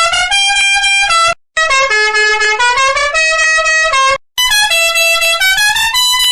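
Musical vehicle air horn playing a short tune, its pitch stepping from note to note, in three phrases with brief breaks between them.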